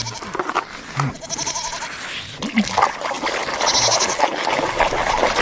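A short wavering, bleat-like call about a second in, then from about three seconds in a steady splashing of running water, washing mud off toys.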